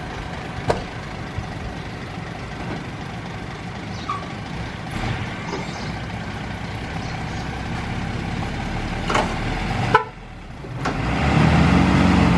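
Diesel truck engines running steadily, then from about a second before the end one revs up louder under load as a truck pulls on a tow cable to drag an overloaded dump truck stuck in sand. A few sharp clicks or knocks.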